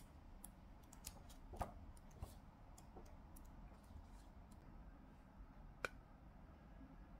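Faint handling of a large art book as its glossy pages are turned: a few soft ticks and paper flaps over near silence, the sharpest about six seconds in.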